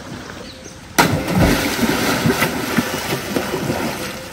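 A sudden loud splash of water about a second in, followed by a few seconds of continued splashing and churning as people swim.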